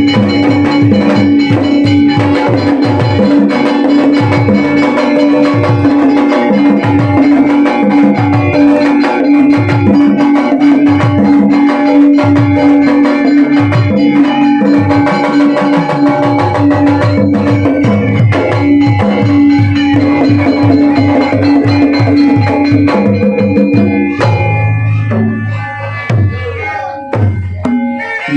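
A Sundanese gamelan ensemble playing, with kendang hand drums beating a quick rhythm under sustained ringing metallophone and gong tones. Near the end the playing thins out and drops in loudness, then comes back in full.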